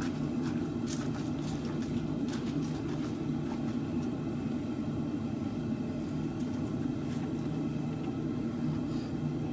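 Smithing forge running with a steady low rumble, a few faint light clicks of metal in the first few seconds.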